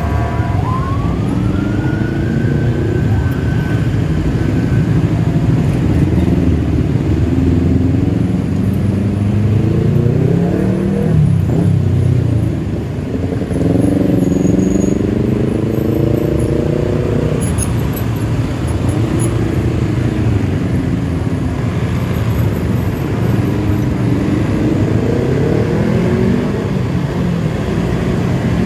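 Motorcycle engine running in stop-and-go traffic, revving up and easing off several times as it pulls away and slows, over a steady rumble of surrounding traffic.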